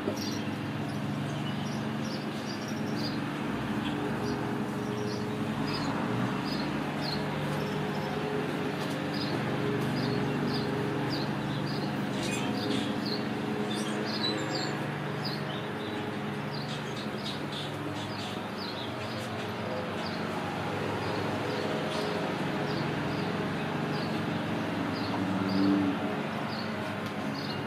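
Small birds chirping over and over, short high chirps, over a steady low hum. A brief louder sound stands out near the end.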